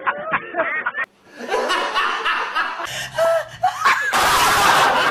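Hard, open-mouthed laughter from a man, cut off about a second in, then a woman laughing hard, breathy and loudest near the end.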